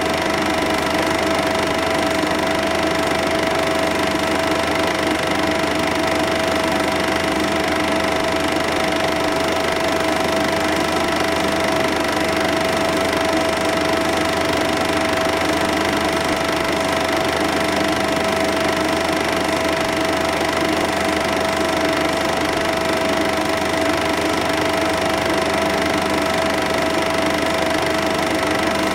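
Cine film projector running: a steady mechanical whirr and clatter from its motor and film transport, with a constant hum, unchanging throughout.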